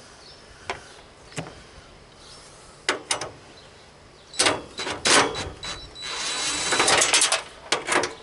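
Power drill backing screws out of a mower hood's grill: a few sharp clicks and knocks, then the drill runs in short bursts with a steady high whine, the longest stretch coming about six to seven and a half seconds in.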